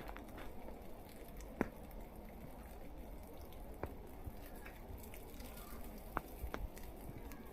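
Faint outdoor ambience in falling snow: a low steady rumble with a few isolated sharp ticks, about four in all.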